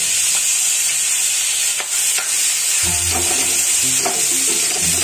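Potato masala frying in a kadhai: a steady sizzle while a metal spoon stirs and scrapes the mashed potato, tomato and spices against the pan. Background music comes in about three seconds in.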